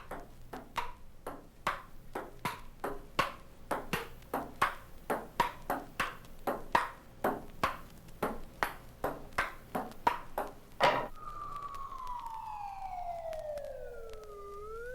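Table-tennis ball being played back and forth, sharp even clicks about two to three a second. About eleven seconds in, the clicks stop and a siren starts, its pitch falling and then wailing up and down.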